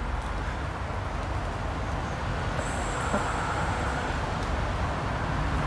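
Steady road traffic noise from a busy bypass: a continuous wash of passing cars that grows slowly louder toward the end.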